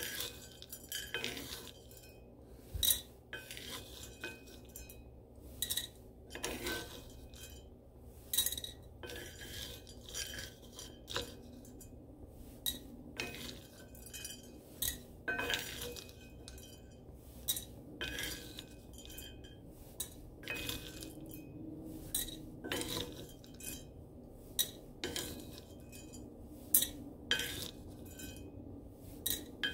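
A wooden spatula stirs dark-roasted coffee beans around a small cast iron skillet during a pan roast. It scrapes the iron and knocks the beans together, giving irregular sharp clicks and clinks about one or two a second.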